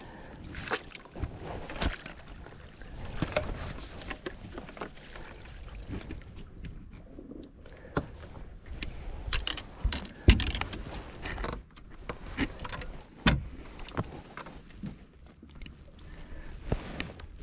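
Irregular knocks, clicks and rattles of fishing gear handled on a boat's deck as a rod is moved about and a landing net is picked up, with one sharp knock loudest about ten seconds in.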